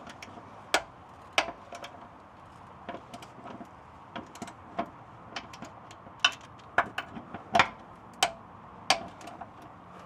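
Hand ratchet clicking in irregular sharp ticks while loosening 15 mm transmission crossmember bolts.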